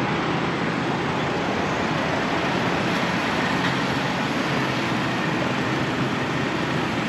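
Diesel running through a pump nozzle into a semi truck's fuel tank at a fuel island: a steady rushing noise with a low hum underneath.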